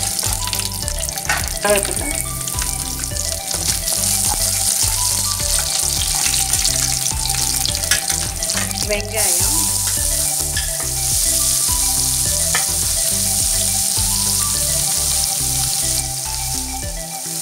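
Hot oil sizzling in a non-stick kadai around a tempering of mustard seeds, urad and chana dal, dried red chillies and curry leaves, stirred with a wooden spatula. About halfway through, chopped onion goes in and the sizzle grows louder.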